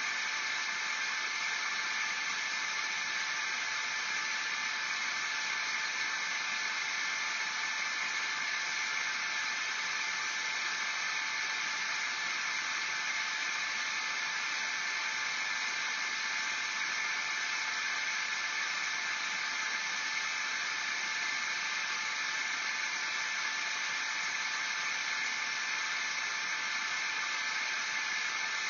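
Steady, even hiss with a few faint steady tones running through it, unchanging throughout.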